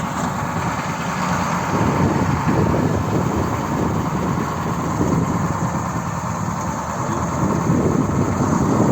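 KamAZ truck's diesel engine running steadily, a dense, even rumble with no clear revving or change.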